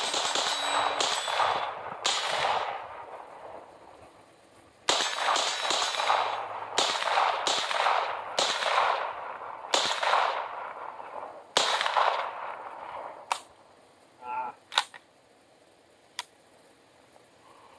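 About a dozen suppressed 9mm shots through a Dead Air Mojave 9 suppressor, fired at an uneven pace with some quick pairs, each ringing out for under a second. A few faint clicks follow near the end.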